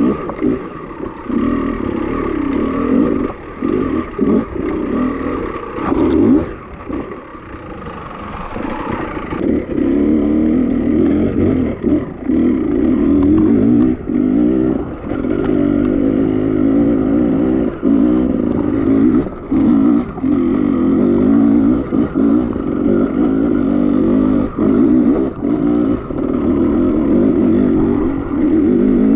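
Beta enduro motorcycle engine running hard under a rider's throttle, revving up and dropping off again and again with many short dips in the engine note. The engine goes quieter for a couple of seconds about six seconds in, then picks back up.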